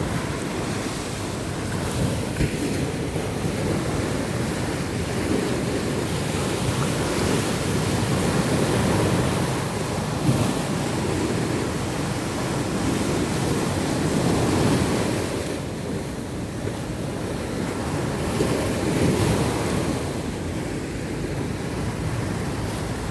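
Surf washing onto a sandy beach, swelling and easing about every five seconds, with sea wind blowing over the microphone.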